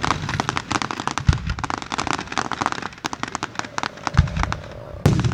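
Fireworks display: rapid crackling pops throughout, with deep booms of bursting shells about a second in and around four seconds, and a sharp, loud bang near the end.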